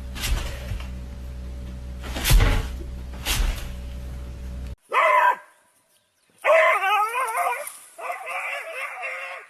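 A few knocks over a steady hum, then a pet's drawn-out, wavering whining calls in three stretches, the pitch wobbling up and down.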